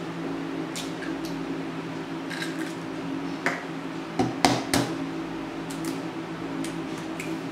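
Eggs being tapped and cracked on the rim of a food chopper bowl: scattered sharp clicks and taps, the loudest a cluster about four to five seconds in, over a steady low hum.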